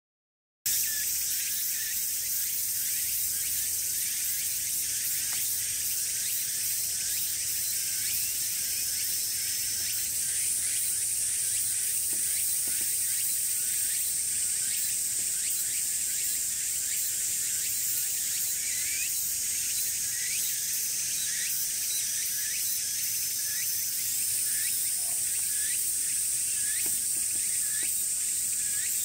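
A summer chorus of cicadas buzzing steadily, starting abruptly under a second in. A high drone steps up in pitch about ten seconds in and again near the end, with many short rising chirps beneath it.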